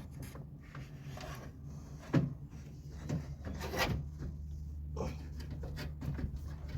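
Scattered knocks and rubbing as a replacement radiator is worked down into a car's engine bay and onto its rubber mount feet, with a steady low hum underneath.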